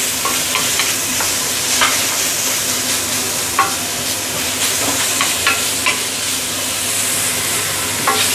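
Julienned carrot and shiitake mushroom sizzling in hot oil in a stainless steel wok over high heat, with a steady hiss. A wooden spatula stirs them, scraping and knocking against the metal now and then.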